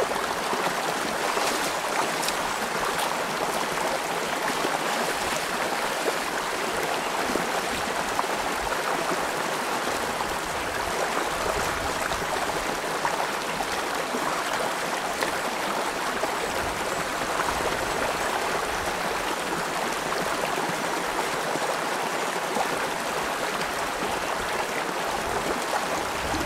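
Shallow rocky creek running over stones: a steady rush of flowing water.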